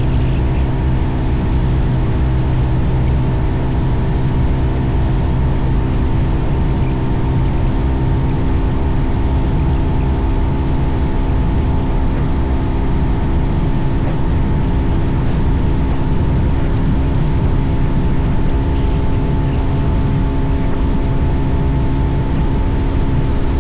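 Bajaj Pulsar 220F's single-cylinder engine running at a steady cruising speed, its note holding even, over heavy wind rumble on the microphone.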